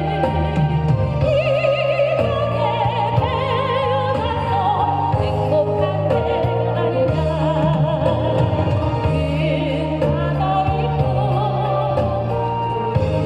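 A solo singer sings a song with wide vibrato over loud backing music with a steady bass line.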